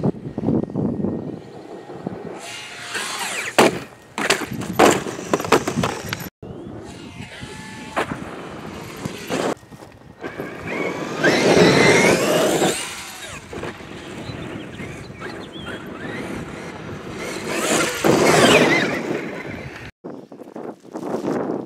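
Brushless electric RC truck driving hard on a dirt track: the motor whines up in throttle surges, with tyres churning dirt and a few sharp knocks. The two loudest surges come past the middle and near the end.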